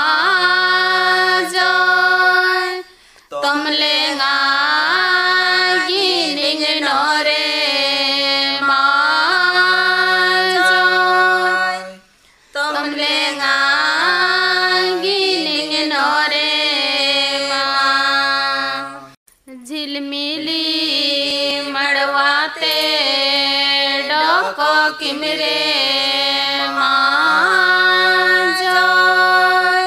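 Khadia durang folk song sung by women's voices, the melody gliding and bending over sustained low notes that change pitch now and then. The singing pauses briefly about three, twelve and nineteen seconds in.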